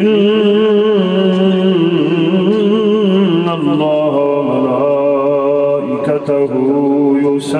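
A man chanting a melodic Arabic recitation into a microphone, with long held notes whose pitch wavers and turns in ornaments.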